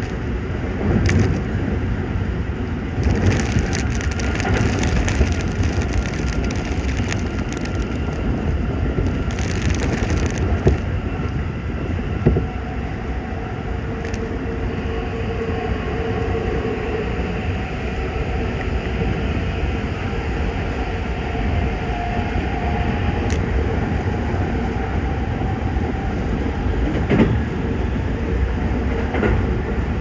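Toei 5500 series electric train running at speed, heard from inside the car: steady running noise with a few knocks, and rain crackling against the carriage. A steady tone joins the running noise about halfway through.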